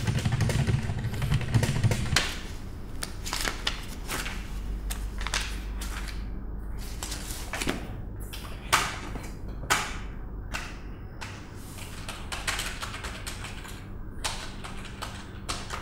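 Typing on a computer keyboard: irregular runs of keystroke clicks with short pauses between them. A low rumble is heard for about the first two seconds.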